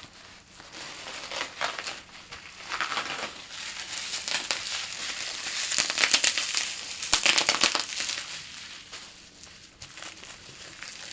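Packaging wrap being torn open and crinkled by hand, a long irregular run of crackling rustles that grows loudest in the middle and then eases off.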